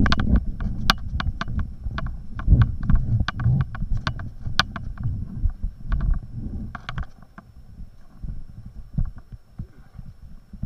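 Muffled low thumps and sharp clicks and knocks from paddling and handling an inflatable whitewater kayak, picked up by a helmet-mounted camera. They are busiest for the first seven seconds, then grow sparser and quieter.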